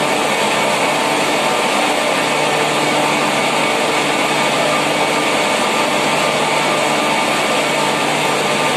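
Loud, steady machinery noise: a constant low hum under an even hiss, with no change in speed or level.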